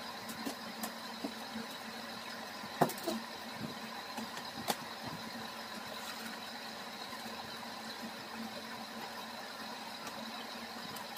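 An A4Tech membrane keyboard's plastic case knocking and clicking as it is handled, turned over and set down on a desk. There are a handful of short clicks in the first five seconds, the loudest a sharp knock about three seconds in, over a faint steady hum.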